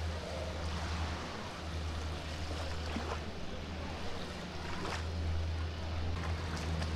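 Beach ambience: surf washing over a steady low engine hum, with a few faint clicks.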